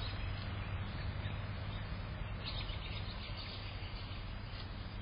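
Steady outdoor background noise with a low hum, and faint high chirps from about halfway through.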